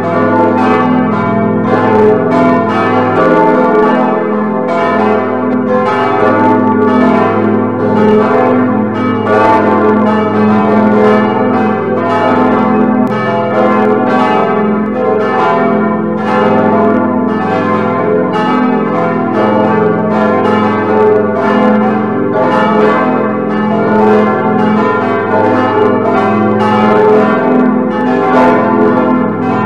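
Full peal of several swinging church bells, rendered by a computer bell simulator: a continuous, irregular stream of overlapping strikes with the low bells' hum held steady beneath.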